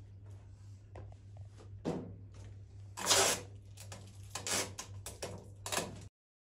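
Flower stems and foliage rustling in several short bursts as stems are worked into a large hand-tied bouquet of irises and alstroemeria, the loudest burst about three seconds in, over a steady low hum. The sound cuts off suddenly near the end.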